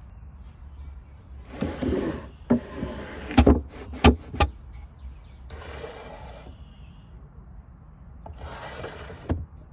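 Wooden drawers of an old workshop parts cabinet sliding out and back in, wood rubbing on wood, with a cluster of sharp knocks about three and a half to four and a half seconds in and another near the end as drawers hit home.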